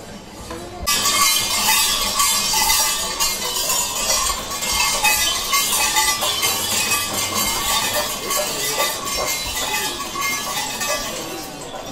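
Metal percussion with dense, continuous jingling and clinking, like small bells and hand cymbals shaken together. It starts abruptly about a second in.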